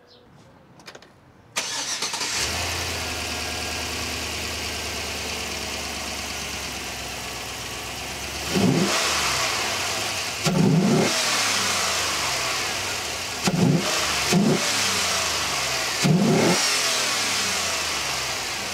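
Chevrolet Tahoe's Vortec V8, freshly fitted with a Trailblazer SS intake manifold and cold air intake, starts up about a second and a half in and settles into a steady idle. It is then revved in five short blips, the last near the end.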